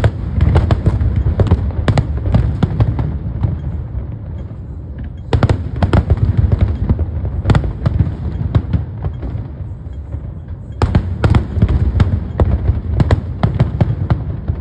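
Aerial fireworks going off in three volleys about five and a half seconds apart. Each volley opens with a sharp bang and runs into a quick string of crackling reports over a low rumble.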